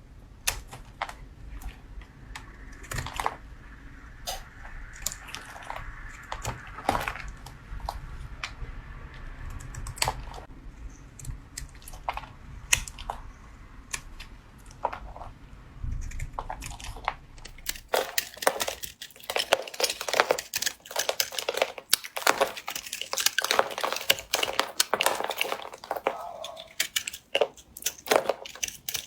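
Blade cutting soap: scattered sharp clicks and scrapes, over a faint low hum that stops about two-thirds of the way in. From then on the cuts come thick and fast as a dense crackling run of clicks.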